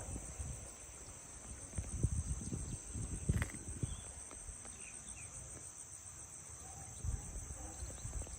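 Steady insect chorus, a high pulsing buzz, over the paddy fields, with intermittent low rumbling and a few faint chirps.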